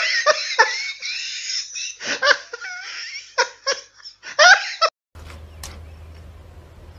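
Giggling laughter in quick bursts for about five seconds, cutting off abruptly. After that comes a quiet, steady low hum with a couple of faint clicks.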